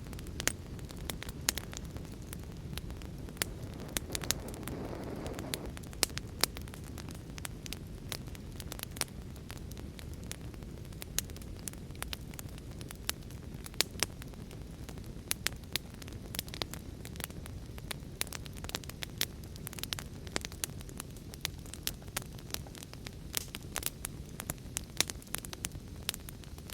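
Fire crackling: a steady low rumble of burning with frequent sharp pops and snaps throughout, and a brief swell of flame noise about four to six seconds in.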